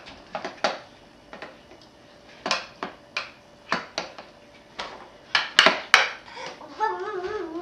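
A baby banging with a toy hammer: about a dozen irregular sharp knocks, the loudest coming close together near the end. Just after them, a baby's wavering, sing-song vocal sound.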